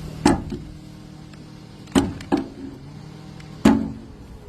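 Sharp knocks as the pressure-washer surface cleaner is banged to shake a mud wasp nest out of it: three main hits about a second and a half apart, each with a short low ring.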